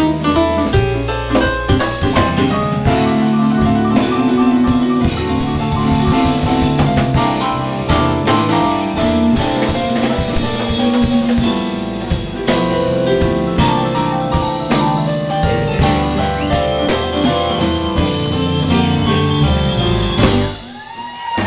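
Live band with a drum kit and electric guitar playing a song, which ends on a final hit about a second before the end.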